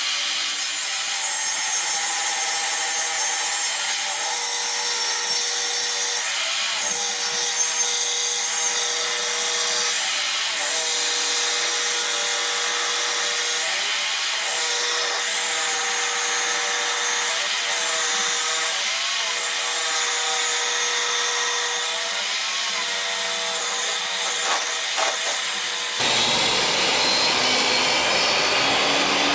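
Table saw ripping a board from dry ash firewood, a long, loud, steady cut with the blade's whine wavering under load. The saw is labouring through the hard, uneven ash and did not like the cut. The sound changes near the end.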